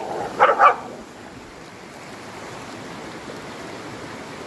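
A dog barks twice in quick succession about half a second in, over the steady rush of a creek.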